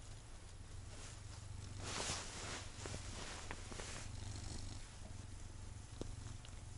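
Domestic cat purring steadily while it is rubbed, with a burst of rustling about two seconds in.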